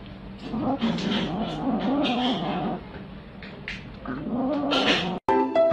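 Cat making a low, wavering growling sound as it eats, in two long stretches. Near the end a sudden cut gives way to a chiming music jingle.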